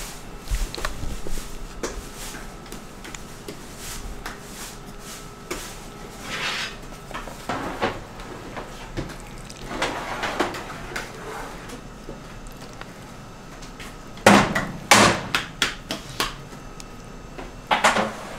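Kitchen work clatter: scattered knocks and taps of utensils, trays or containers, with brief rustling, and the loudest pair of knocks about fourteen to fifteen seconds in and another near the end.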